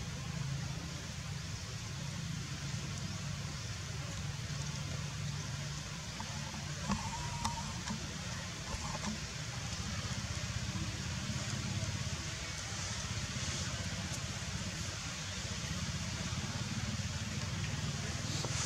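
Steady outdoor background noise: a low rumble under an even hiss, with a few faint clicks and a brief faint high squeak about seven seconds in.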